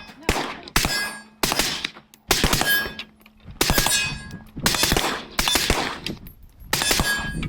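AK-pattern rifle firing single shots at an uneven pace, about nine in all, each followed by a short echoing tail; several shots carry a brief metallic ring.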